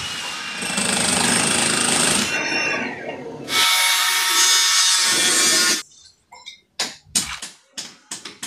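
A power tool running in two stretches, the second about two seconds long and harsher, followed by a string of sharp knocks near the end as the tool is set to work on the concrete column.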